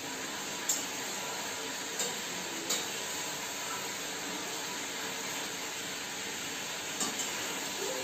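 Spoon stirring fish curry in a metal wok over a gas burner: a steady hiss under a few sharp clinks of the spoon against the pan, four in all. The curry is being stirred so it does not stick to the bottom as it thickens.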